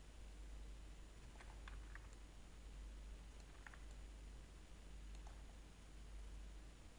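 Near silence with a low steady hum, broken by a few faint clicks from a computer keyboard and mouse.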